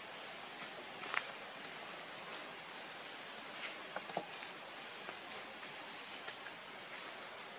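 Steady high-pitched drone of insects, with a few light snaps and rustles from monkeys moving in the branches, the sharpest about a second in and again about four seconds in.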